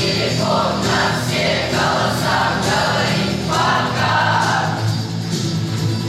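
Youth folk choir singing, with held low accompaniment notes under the voices.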